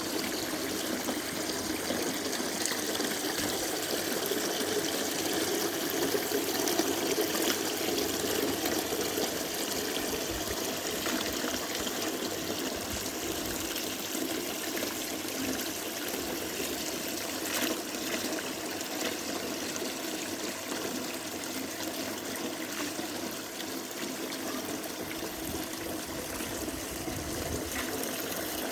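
Indoor tabletop fountain with a root-style waterfall: water trickling steadily over the waterfall into its basin.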